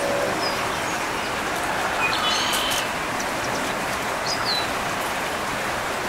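Small songbirds giving a few short chirps over a steady hiss of background noise: a cluster of notes about two seconds in, and a falling call a little after four seconds.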